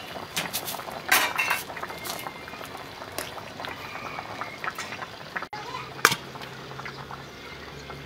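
Water at a rolling boil in a large metal pot with a slab of pork belly in it, bubbling steadily, with sharp clinks of a metal utensil against the pot and bowl as the pork is lifted out.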